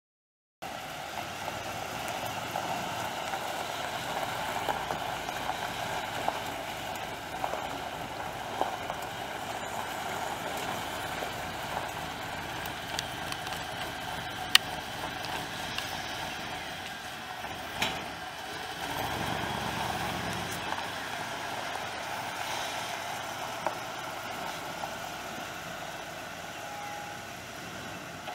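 A 1986 Ford F150's 5.0-litre V8 running steadily at idle, with a few sharp clicks along the way.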